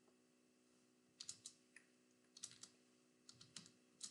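Faint computer keyboard typing: short runs of keystrokes starting about a second in, as a terminal command is typed.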